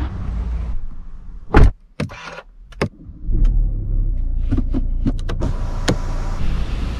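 Car on the move: a steady low rumble of engine and road noise, broken between about one and three seconds in by a sharp, loud knock and a few clicks before the rumble comes back.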